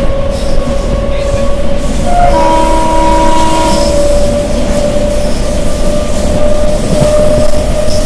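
Running noise of a moving passenger train, heard at an open carriage window, with a steady whine throughout. About two seconds in, a chord of held tones like a train horn sounds for a second and a half.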